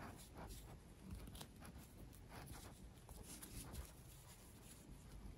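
Near silence, with faint soft rustles and small ticks of yarn being pulled through a crocheted piece and handled by fingers.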